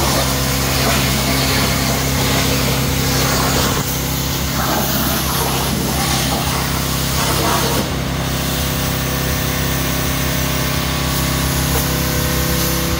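A small motor-driven machine running steadily: a constant hum with a broad hiss over it.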